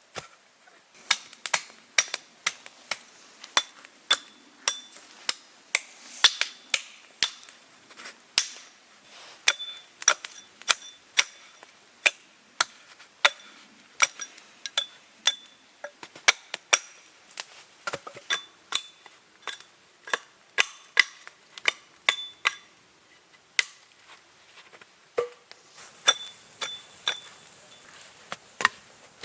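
Repeated sharp strikes of a hand tool, roughly two a second, each with a brief metallic ring, pausing briefly near the end before starting again.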